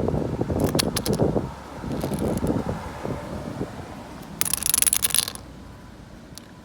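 Metal padlock flicked so it swings on its hasp: the shackle clinks and rattles against the metal in quick clattering runs, dying away after a few seconds. About four and a half seconds in comes a brief hissing rattle of about a second.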